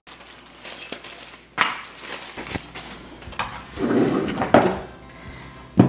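A plastic parts bag crinkling, then hard plastic scooter parts being picked up and knocked and slid on a hardwood floor, with irregular knocks and scrapes, the loudest around four seconds in and a sharp knock near the end.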